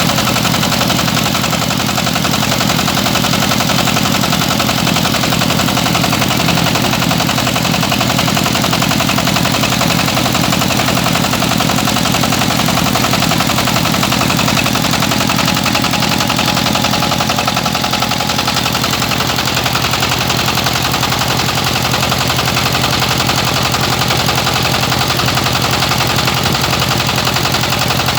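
Rice milling machine running steadily and loudly, with a fast, even mechanical pulsing over a constant low hum.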